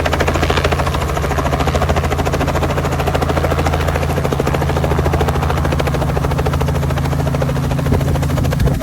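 Helicopter running close by: a steady, loud engine and rotor sound with a fast, even chop.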